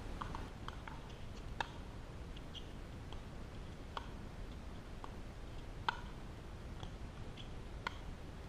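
Pickleball rally: sharp pops of paddles hitting the plastic ball, four main hits about two seconds apart, with fainter clicks in between.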